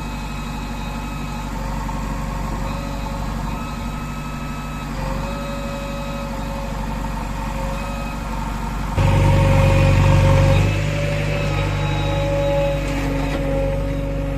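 Diesel engine of heavy earthmoving machinery running steadily, growing abruptly louder about nine seconds in and easing back a little after.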